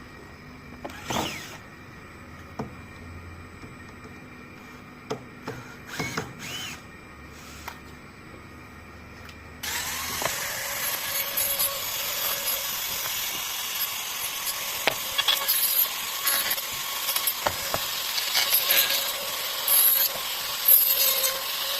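A few light knocks and scrapes of a wooden workpiece being handled. About ten seconds in, a handheld power tool starts and works on the wood: a steady hum under a rough, fluctuating grinding noise.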